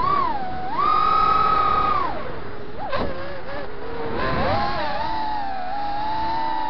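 FPV quadcopter's brushless motors whining, the pitch climbing and falling with the throttle: held high for about a second near the start, dropping, then rising again, with a brief tick about three seconds in.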